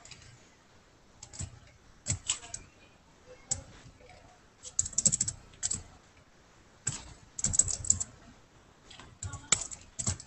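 Computer keyboard typing: irregular short runs of keystroke clicks with pauses between them, including a few quick flurries.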